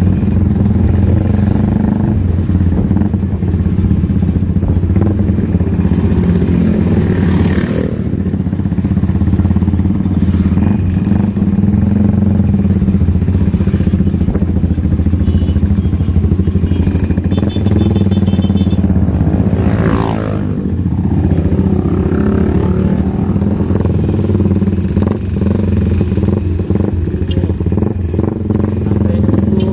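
Motorcycle engine running steadily at low speed, with a short falling whine about twenty seconds in.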